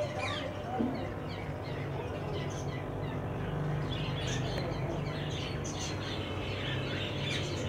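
Small birds chirping in many short, quick calls, over a steady low hum.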